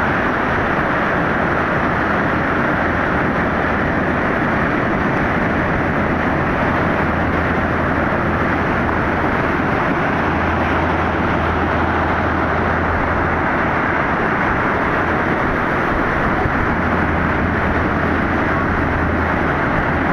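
Heavy surf breaking on the beach, heard as a steady, even rushing noise.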